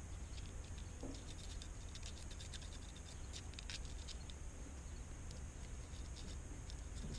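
Faint, irregular scratching and light ticks of a lawnmower spark plug being scraped clean of soot and deposits. The ticks come thickest in the middle of the stretch.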